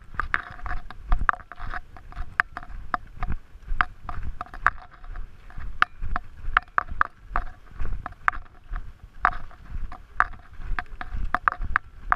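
Hikers' footsteps and trekking-pole tips striking a dry, rocky dirt trail: sharp, irregular clicks about three a second, over a low rumble of wind on the microphone.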